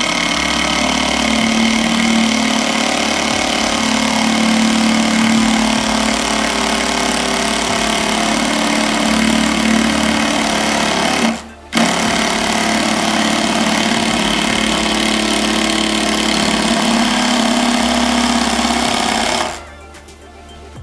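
An electric power tool's motor runs loud and steady, stops briefly about halfway through, starts again and cuts off near the end.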